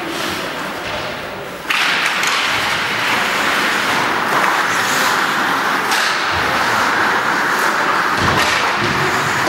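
Ice hockey game sounds in a rink: knocks and thuds of puck, sticks and bodies against the boards over a steady noisy rink background, which jumps up suddenly about two seconds in.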